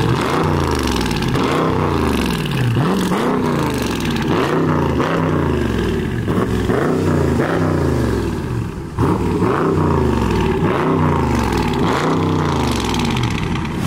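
2020 Dodge Charger Scat Pack's 392 HEMI 6.4-litre V8 revved again and again in quick blips, the pitch rising and falling each time, through a straight-through exhaust with both muffler and resonator deleted.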